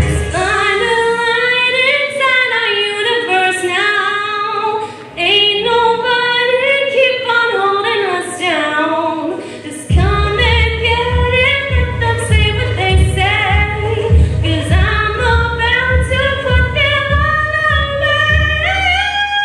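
A woman singing solo into a microphone over accompaniment, her voice carrying the melody; a deep rhythmic bass and beat come in strongly about halfway through.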